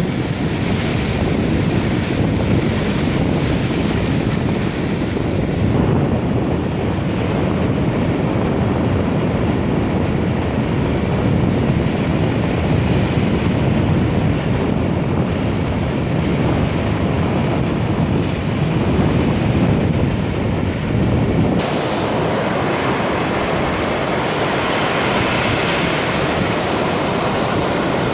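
Lake Michigan waves breaking on a sandy beach, with wind rumbling on the microphone. About three-quarters of the way through, the sound changes suddenly: the wind rumble drops and the surf's hiss comes through brighter.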